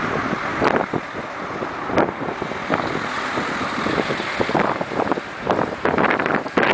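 Golden retriever puppy digging in dry sand with its front paws: quick, irregular scratchy scrapes of sand, coming thicker near the end, over a steady rush of wind on the microphone.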